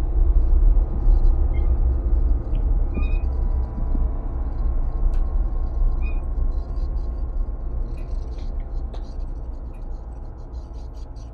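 Loud, steady outdoor rumble, very low and unsettled, easing off toward the end, with a few short faint high chirps in the first six seconds.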